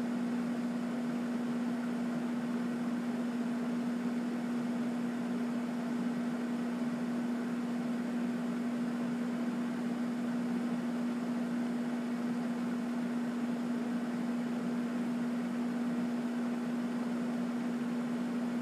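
Steady low hum with a constant even hiss, unchanging throughout: room tone.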